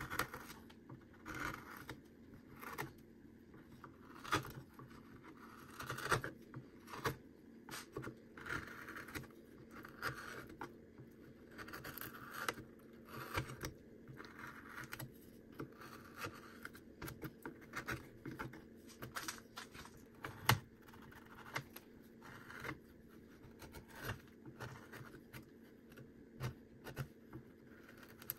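Small hand carving knife cutting and scraping into cottonwood bark in short, irregular strokes, with sharp little clicks between them.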